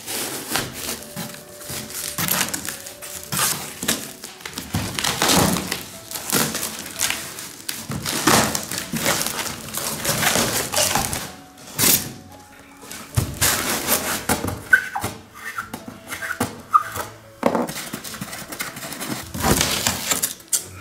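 Cardboard box packaging being torn open by hand: rustling and scraping of cardboard and clear packing tape, with scattered thunks as flaps are pulled back and the foam inner box is handled, over quiet background music.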